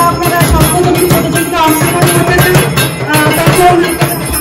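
Music: a melody of held notes over busy percussion with jingling, bell-like accents.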